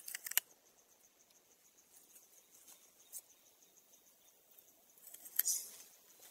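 Faint forest ambience with a steady high insect hum, broken by a quick run of crackling rustles at the start, a single click about three seconds in, and a louder crackling rustle near the end.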